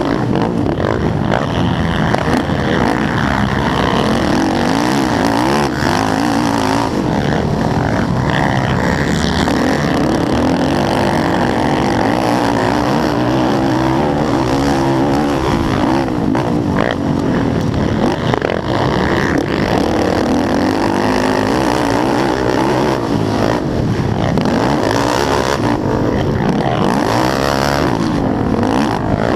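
Yamaha YFZ450R racing quad's single-cylinder four-stroke engine run hard, its pitch rising and falling again and again as it revs up and down through the gears.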